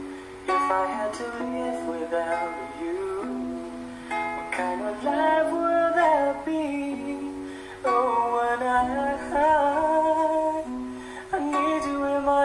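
Ukulele playing, with a fresh chord struck about every three to four seconds, under a sung melody that wavers in pitch.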